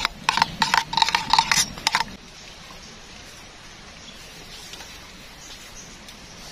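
Metal spoon stirring in a small metal kettle, clinking rapidly against its side for about two seconds, then stopping; after that only faint forest background.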